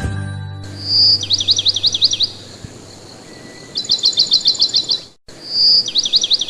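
Small songbird singing: a clear whistle followed by a quick run of chirps, then a fast series of repeated high notes, then another whistle and chirp run. The end of a music track is heard in the first half-second.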